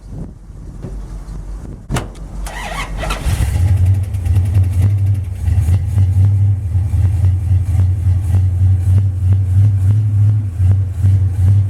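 1980 Dodge D150 drag truck's engine cranked over by the starter and catching about three seconds in, after a sharp click. It then runs loud and steady, still warming up after sitting through the winter.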